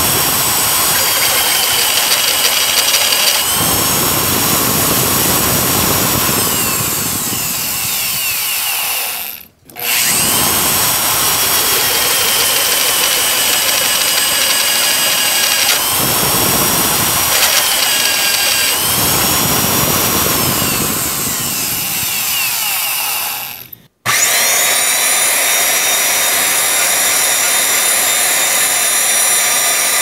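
Drill press spinning a step drill bit through steel tubing: a steady motor whine over grinding metal-cutting noise as the hole is opened out and countersunk. The whine sags in pitch a few times as the bit bites. The sound breaks off briefly twice, about a third of the way in and again near the end.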